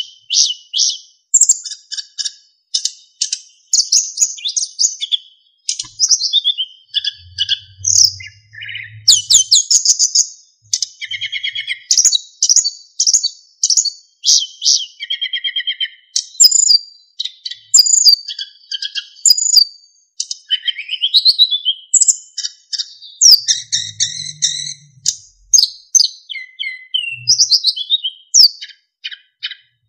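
Sikatan emas flycatcher singing continuously: rapid, varied phrases of chirps and trills mixed with clear, flute-like whistles, one burst after another with short pauses.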